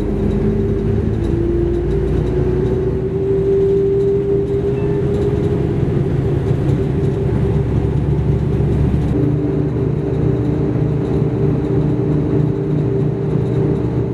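Road vehicle driving at speed, heard from inside: a steady engine drone over tyre and road rumble, the engine note rising slightly in the first few seconds.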